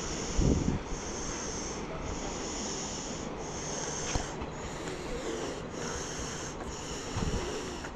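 Wind buffeting the microphone outdoors, with gusts about half a second in and again near the end, over a high hiss that pulses on and off about once a second.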